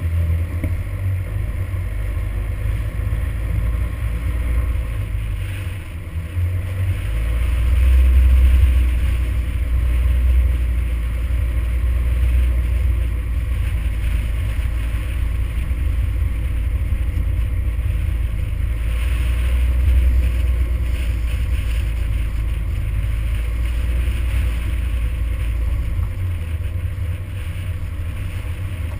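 Toyota Hilux driving along a gravel hill track: a steady low rumble of engine and tyres on gravel, swelling about eight seconds in and again about twenty seconds in.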